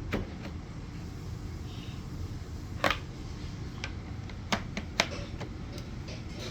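Plastic vacuum cleaner parts clicking and knocking as they are handled and fitted together: a few sharp knocks, the loudest about three seconds in and twice more near five seconds, with fainter clicks between.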